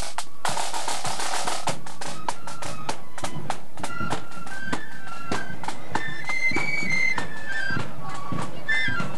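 Marching flute band: side drums beating a steady march rhythm, with transverse flutes joining about four seconds in to play a melody together over the drums.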